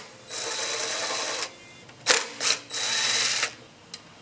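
Cordless power driver spinning in two short bursts with a thin whine, with a sharp click between them, likely taking fasteners off a small engine to remove its carburetor.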